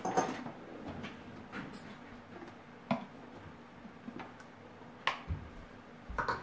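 A few light clicks and knocks of kitchen things being handled, four or so in all, the loudest about five seconds in.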